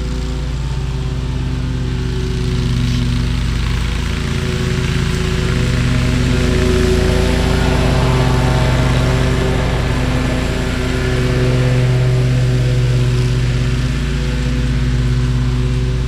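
Stand-on lawn mower (Toro Grandstand) with its engine running steadily while mowing, growing a little louder and softer as it moves about the lawn.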